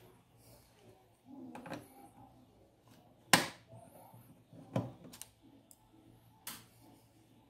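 Scattered sharp clicks and taps of a small screwdriver working the tiny screws out of the bottom edge of a flat-screen TV's panel frame, about six in all, the sharpest a little over three seconds in.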